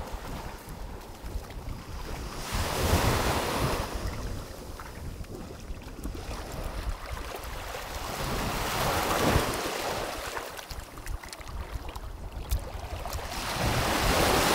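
Small waves breaking and washing up a sandy shore, swelling three times about five to six seconds apart, with wind buffeting the microphone.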